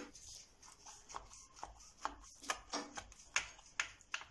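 Knife cutting through rows of rolled, oiled yufka pastry (büzme tatlısı) in a baking tray: a string of short cutting strokes, roughly two a second.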